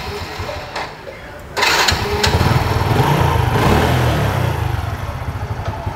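Small motorcycle engine started: it catches suddenly about one and a half seconds in, then settles into a steady idle.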